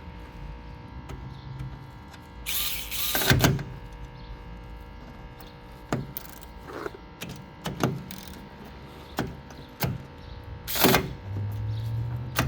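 Small electric motor of a Vessel cordless electric ratchet whirring in short runs, about a second in and again near the end, among sharp clicks, knocks and scraping of the tool against the work.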